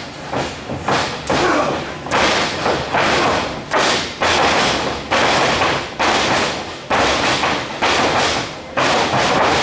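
Repeated blows landing on a wrestler cornered against the ring ropes: about ten heavy thuds roughly a second apart, each trailing off briefly.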